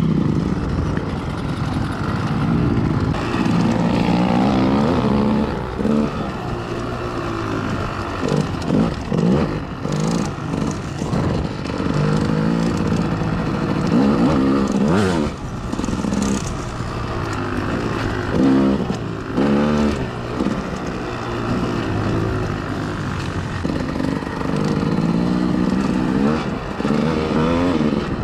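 Off-road vehicle engine running while being ridden, its pitch rising and falling again and again as the throttle opens and closes.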